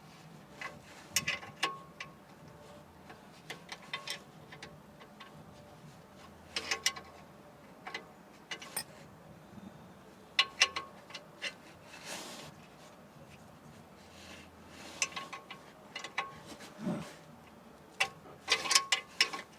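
Irregular light clicks and clinks, some ringing briefly, of hand tools and metal parts being handled, coming in small clusters with the loudest run near the end.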